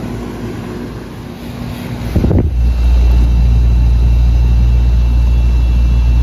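Air-conditioner condensing unit's compressor starting about two seconds in with a short clunk, then running with a loud, steady low hum. A compressor that would not run has just been fitted with a 35 microfarad capacitor, and it kicks on with a slightly hard start.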